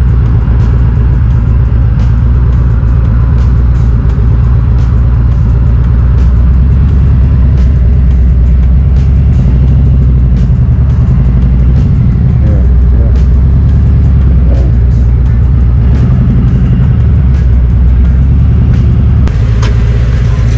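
Cruiser motorcycle engine running steadily at low speed, heard from the rider's seat.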